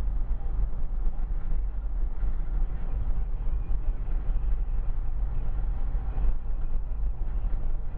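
Steady low rumble of road and engine noise heard inside a moving car.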